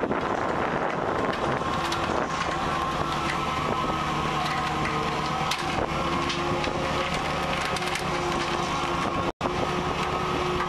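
Trawler's net drum and deck machinery running steadily with the trawl, a constant mechanical hum with scattered creaks and clicks from the netting and gear. The sound cuts out for an instant about nine seconds in.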